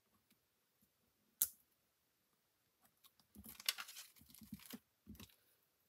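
A single sharp click about a second and a half in, then the crinkling rustle of a clear plastic sheet of adhesive snowflake embellishments being handled, with a short last rustle near the end.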